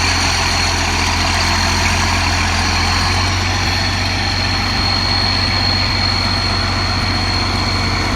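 Tractor engine running steadily while towing a grain cart: a low, even drone with a thin, steady high whine above it.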